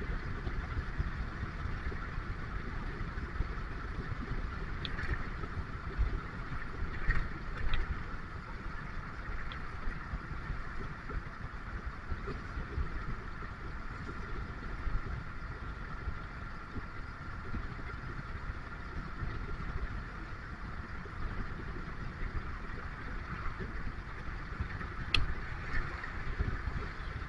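Steady engine rumble and road noise of a bus underway, with a few short knocks or rattles along the way.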